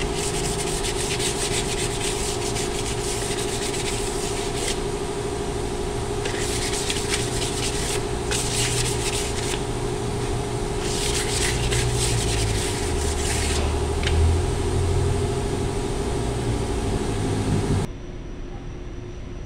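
Scratchy rubbing on a forklift's steel brake drum, in several spells of strokes, over a steady machine hum.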